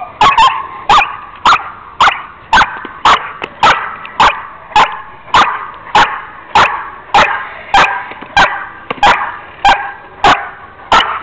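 Eleven-month-old German Shepherd barking steadily at a decoy in protection training, about two sharp barks a second.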